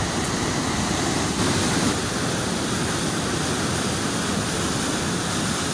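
Canal water rushing and churning white over a concrete drop, a steady, loud rush of falling water.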